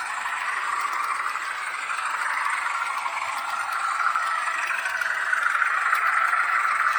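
H0-scale model of a Renfe Alco 313 diesel locomotive running along the track: a steady whir of its motor and wheels rattling on the rails, with faint ticks.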